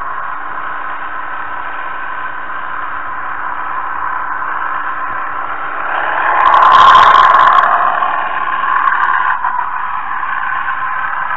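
Model narrow-gauge train running along its track, heard from a camera riding on the train: a steady whirring of the motor and wheels, swelling louder for a second or two about six seconds in.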